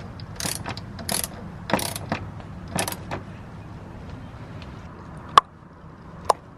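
Ratchet wrench clicking in a few short bursts as the idler pulley's lock-down bolt is tightened, then two sharp metallic clinks near the end.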